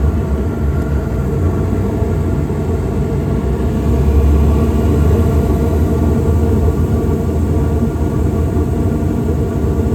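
Payne gas package unit running in heating mode with its burners lit: a steady low rumble of burner flame and draft inducer motor. It is firing again on a new gas valve and a new inducer capacitor.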